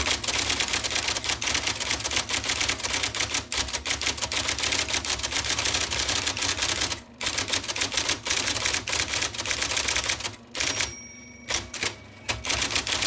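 IBM Selectric II electric typewriter typing fast, its golf-ball type element striking the paper in a rapid stream of clacks. Short pauses about 7 seconds in and around 11 seconds leave the motor's whirring running on its own.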